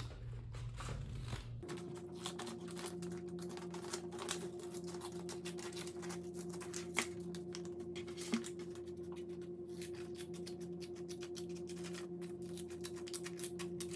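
Small scissors snipping through folded paper, with paper rustling: a long run of many small clicks over a steady low hum.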